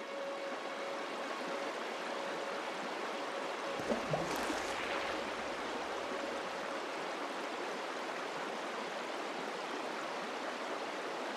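Shallow river running steadily over rocks, an even rushing of water, with a brief low thump about four seconds in.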